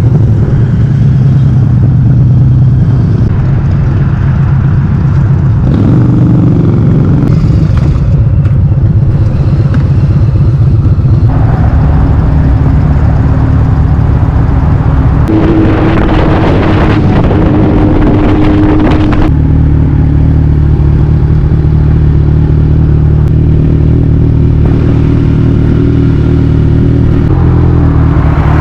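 Motorcycle engine running at a steady cruise, its note shifting a few times, under heavy wind noise on the microphone.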